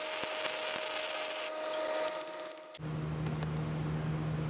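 MIG welder arc crackling and hissing as a bead is run on a preheated cast iron anvil, breaking into short spurts before it stops abruptly about three seconds in. A low steady hum follows.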